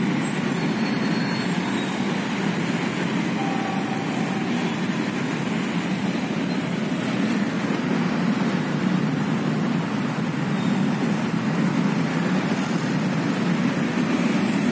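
Steady road traffic noise from trucks, a car and motorbikes with their engines running at a level crossing.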